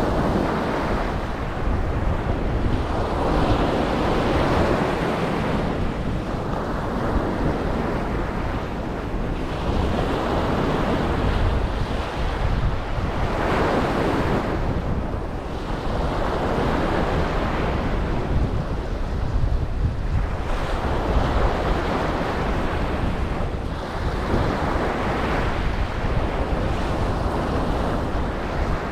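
Ocean waves breaking on a beach, the surf swelling and washing back every few seconds over a constant low rumble, with wind buffeting the microphone.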